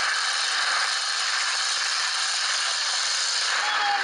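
Unmuffled demolition-derby truck engines running hard, heard as a steady, dense rattling noise with little low end.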